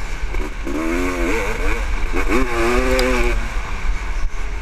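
1996 Honda CR500's 500cc single-cylinder two-stroke engine racing on the track, its pitch rising and falling as the throttle is worked, with two clear climbs through the revs. Wind buffets the helmet-mounted microphone under the engine note.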